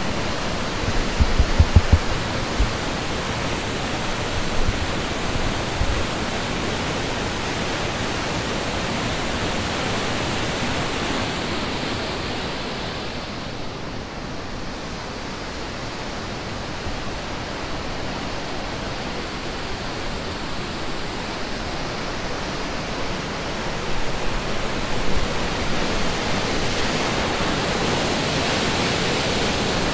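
Steady rush of a mountain waterfall, a loud even hiss. A few low thumps come about two seconds in, and the rush is duller and a little quieter for a stretch in the middle.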